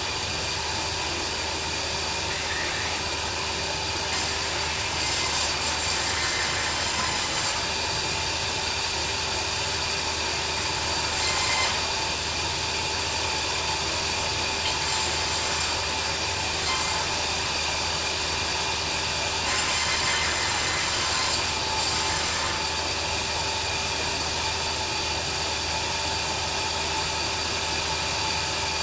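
Bandsaw sawmill running steadily with its blade cutting through timber, the high hiss of the cut swelling for a few seconds at a time, most strongly a few seconds in and again about two-thirds of the way through.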